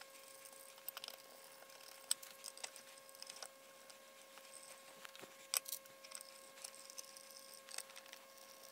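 Faint scattered clicks and light metallic taps of two Edelbrock AVS four-barrel carburetors being handled and set onto an aluminium Offenhauser dual-quad intake manifold, the loudest taps about 2 and 5.5 seconds in. A faint steady high whine runs underneath.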